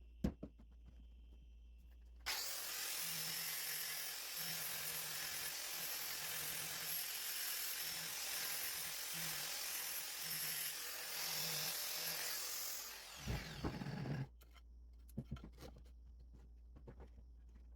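Angle grinder running steadily against the steel adze head, then switched off and winding down about two-thirds of the way through. A few short knocks follow.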